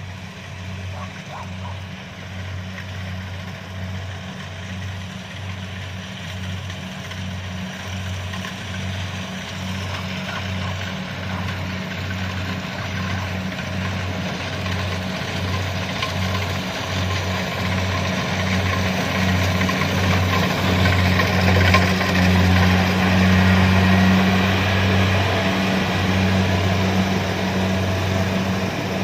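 Kubota DC-70 combine harvester's diesel engine running with a low, pulsing drone. It grows steadily louder and is loudest about three-quarters of the way through.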